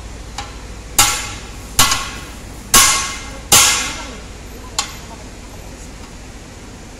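A hammer striking the steel ring of a large multi-piece off-road tyre rim: four heavy blows about a second apart, each with a short metallic ring, then a lighter tap, working the ring into place on the rim.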